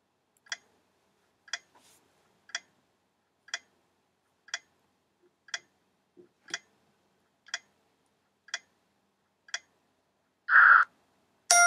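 Countdown-timer clock sound effect ticking once a second, ten ticks in all. A short burst of noise follows, and a chime starts right at the end as the time runs out.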